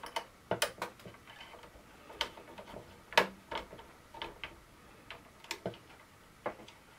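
Irregular small clicks and ticks of a small screwdriver and metal tweezers against a tiny screw and the plastic parts of a model ship's hull, the loudest about three seconds in.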